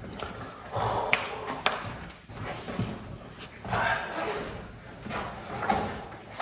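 Intermittent scuffing and rustling from someone moving about and handling things on the floor, with two sharp clicks a little over a second in, over crickets chirping steadily.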